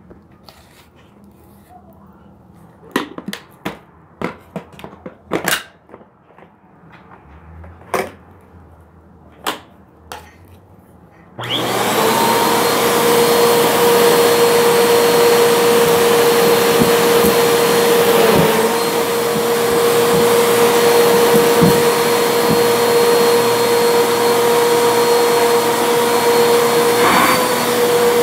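A few scattered sharp taps and clicks as the fluff is handled, then about eleven seconds in a Bissell vacuum cleaner switches on and runs steadily with a high whine, its pitch dipping briefly twice.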